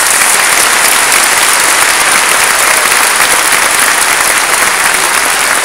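Large convention audience applauding steadily and loudly.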